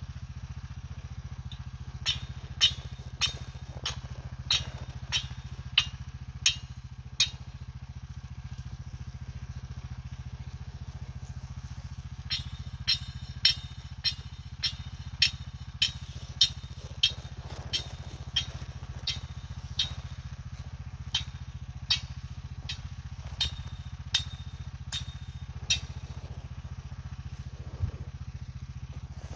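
An ATV engine idling steadily, overlaid by sharp, irregular clicks: a run of about a dozen from two to seven seconds in, and a longer run from about twelve to twenty-six seconds in.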